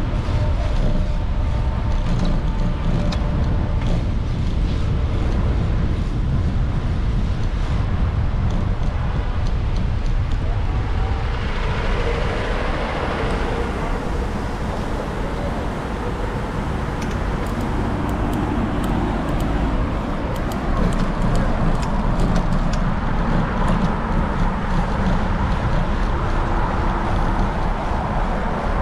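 Street traffic: cars passing, over a steady low rumble, with one passing car swelling up about twelve seconds in.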